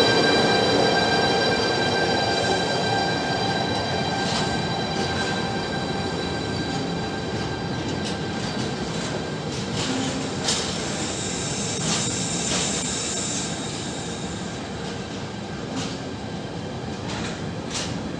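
Intermodal freight train of pocket wagons loaded with lorry trailers rolling past at close range. Its wheels squeal with several high steady tones that fade out over the first half, and a few sharp clacks come from the wheels. The rumble slowly dies away as the train draws off.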